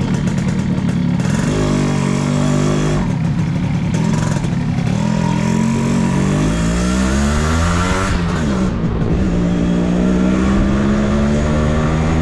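Yamaha RX135's two-stroke single-cylinder engine running and being revved: its pitch climbs for a couple of seconds past the middle, drops sharply, then holds steadier.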